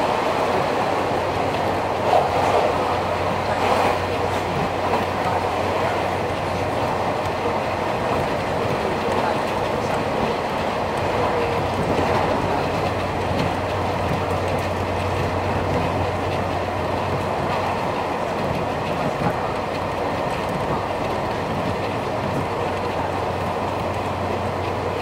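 Nankai 2000 series electric train, fitted with early Hitachi GTO VVVF inverters, running at steady speed, heard from inside the car. A continuous rumble of wheels on the rails rides over a low steady hum, with a few louder knocks in the first few seconds.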